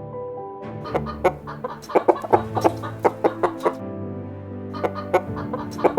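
Chickens clucking: many short, sharp clucks in irregular runs, with a brief lull near the middle.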